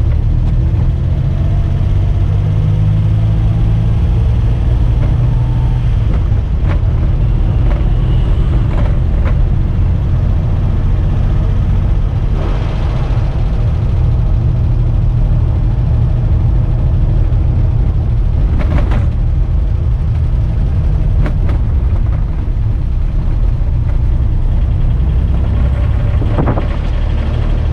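Cabin noise of a 1984 Daihatsu Hijet 1000 on the move: its small three-cylinder engine runs steadily under a heavy low rumble of engine and road noise. There are a few brief knocks from the cabin along the way.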